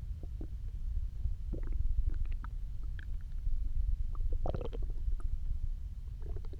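Empty human stomach growling, the sign of hunger after nearly 24 hours without food: a continuous low rumble overlaid with short, irregular gurgles and squeaks, the loudest burst of gurgling a little past halfway.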